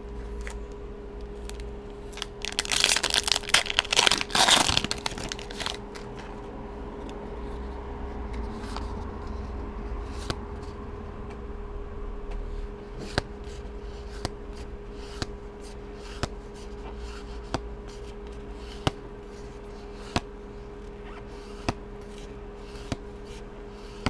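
A Magic: The Gathering booster pack's wrapper torn open with a loud crinkly rip a few seconds in, then the trading cards flicked through one at a time, a light snap about once a second. A faint steady hum lies underneath.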